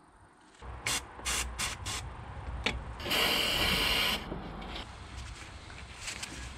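Aerosol freezing spray hissing in one burst of about a second, chilling a bolt to help loosen it. A few sharp clicks come before it.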